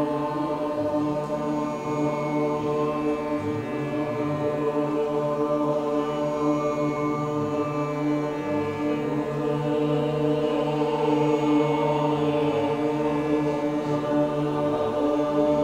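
Slow, sustained mantra chanting led by a man's voice, held on long drawn-out tones over a steady drone.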